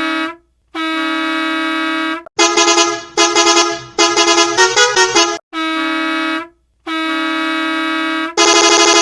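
Bus horn sound effects in quick succession: steady horn blasts of about one to one and a half seconds each, broken in the middle by rapid stuttering honks and a run of notes that change in pitch. It ends with a louder, rapidly pulsing blast.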